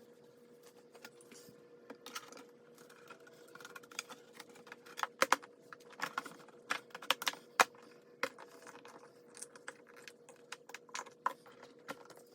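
Irregular run of light clicks and taps, most frequent and loudest in the middle, over a faint steady hum.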